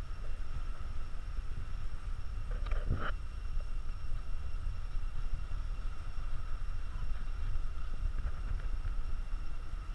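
Wind rumbling on the camera microphone, with a faint steady high hum beneath it and one brief sound about three seconds in.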